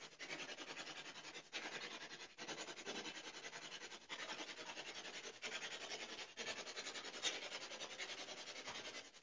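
Steady hiss of static with a fast, fine flutter, broken by brief dropouts every second or so.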